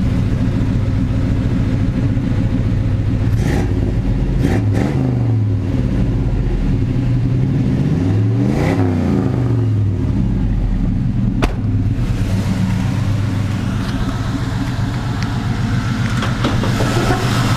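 A 305 small-block V8 in an '87 Chevy C10 running through headers and exhaust tips, idling steadily and revved up and back down twice, the second rev about eight seconds in. A single sharp click comes about eleven and a half seconds in.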